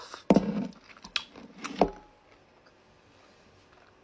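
A person biting into lavashak, a sour pomegranate fruit leather topped with pomegranate seeds: a short muffled mouth-and-throat noise, then a few sharp mouth clicks, all within the first two seconds.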